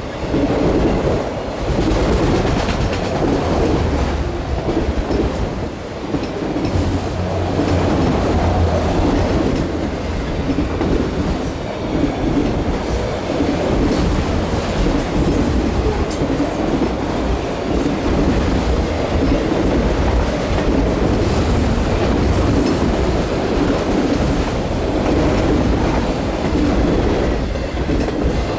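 Norfolk Southern mixed freight train rolling past, its steel wheels rumbling steadily on the rails with occasional clacks.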